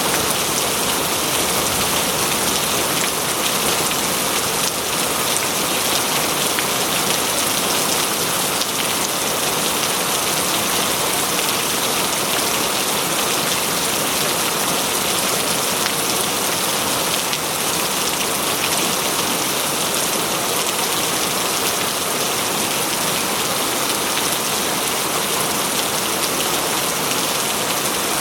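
Steady heavy rain falling, a dense even hiss with many fine drops pattering on surfaces.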